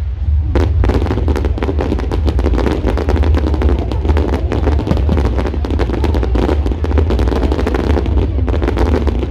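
A long string of firecrackers going off in rapid crackling succession, starting about half a second in, over a steady low rumble.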